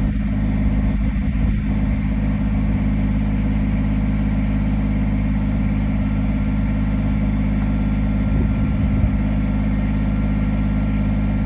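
Kubota backhoe's diesel engine running steadily. A few faint knocks come in the first two seconds and again about nine seconds in.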